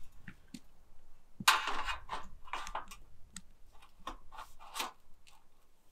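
Light-gauge galvanized steel studs and braces clanking and knocking as they are handled and fitted into a steel wall frame on a concrete slab: a loud metallic clatter about a second and a half in, then a run of sharper knocks.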